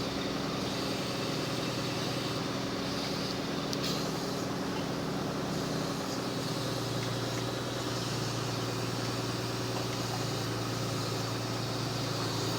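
Truck engine running steadily to drive a Munck GFT 10.000 forestry crane's hydraulics. About six seconds in, its note changes and the lowest tone grows stronger.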